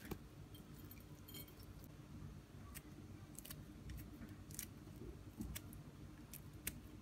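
Faint snips of kitchen scissors cutting fresh red chilli over a plate, a few irregular sharp clicks over a low steady hum.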